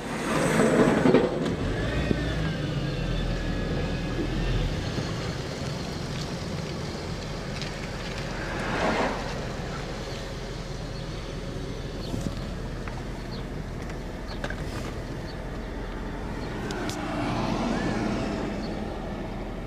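Car running and moving, heard from inside its cabin: a steady low engine hum with road noise that swells a few times.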